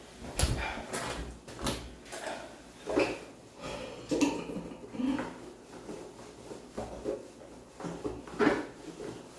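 A wet cat being rubbed with a towel in a plastic basin: irregular rubbing and knocking, with the basin clunking on a tiled floor and echoing in a small tiled room.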